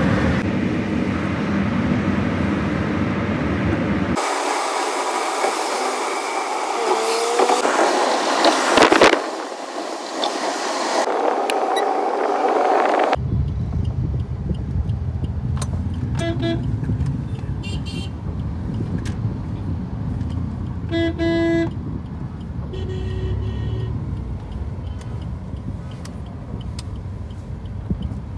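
Traffic and road noise heard from inside a moving car. In the second half, in busy street traffic, vehicle horns toot briefly several times.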